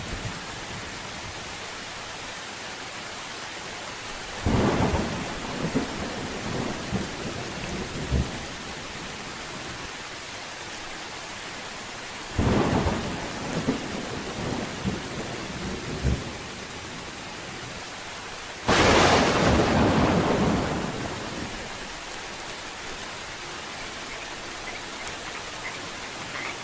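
Steady rain with three rolls of thunder, about 4 and 12 seconds in. The loudest and longest rumble comes about 19 seconds in and dies away over two seconds.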